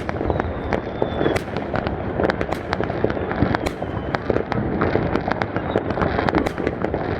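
Fireworks going off continuously: many sharp bangs and crackles in quick, irregular succession over a steady rumbling din.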